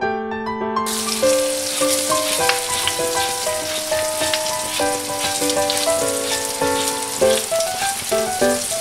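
Green beans frying in oil in a pan, sizzling steadily. The sizzle starts about a second in, over background piano music.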